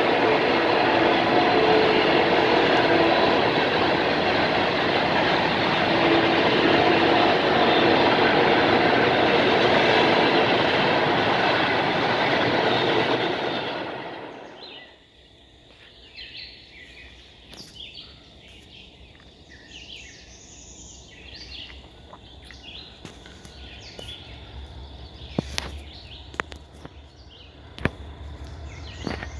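Freight train cars rolling past: a loud, steady rumble and rattle of wheels on rail that fades out about halfway through. After it, a much quieter stretch with faint chirps and a few sharp clicks.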